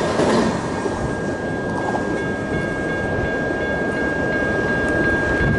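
Rumble of a Canadian National mixed freight train moving off after its last cars have passed. A thin steady high tone comes in about half a second in and holds.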